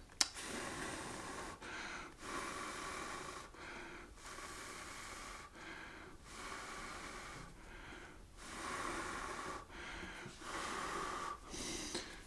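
A person breathing in and out close to the microphone: a slow, regular string of faint breaths, with a small click right at the start.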